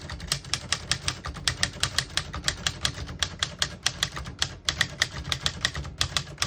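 1960 Smith-Corona Skyriter portable typewriter being typed on: a quick, steady run of typebar strikes as a sentence is typed.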